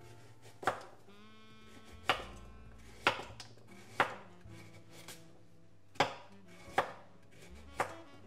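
Kitchen knife chopping vegetables on a cutting board: seven separate cuts about a second apart, each a sharp knock of the blade on the board.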